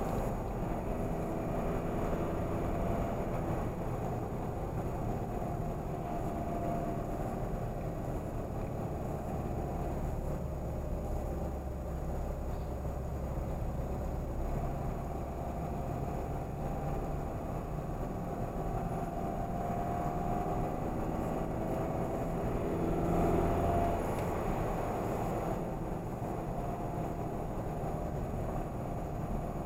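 Engine and road noise of a moving car heard from inside the cabin, a steady low rumble. It swells briefly about three-quarters of the way through.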